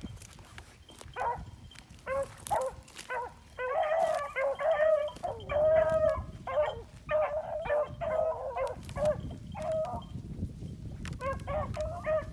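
A pack of beagles baying on a rabbit's trail, several hounds giving voice at once in overlapping drawn-out cries. The cries are sparse at first, pile up thickly from about two seconds in, drop away briefly a couple of seconds before the end, then start again.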